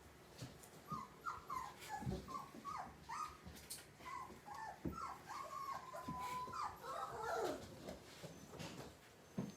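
Young German shepherd–husky mix puppies whimpering and squeaking in a rapid run of short high cries, with one longer held whine about six seconds in. A few soft knocks are heard among them.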